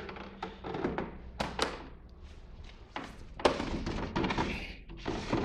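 Hollow plastic knocks and clicks as the perforated front cover of a Xiaomi Air Purifier 2S is fitted back over the filter and the housing is handled, the loudest knock about three and a half seconds in. Scraping and rubbing follow as the unit is turned around.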